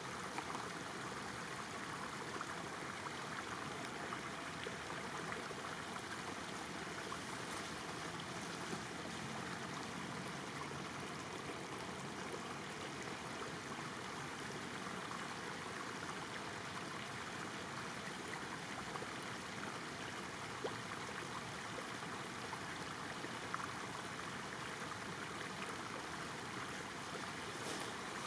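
Floodwater flowing steadily, an even rushing with a few faint ticks.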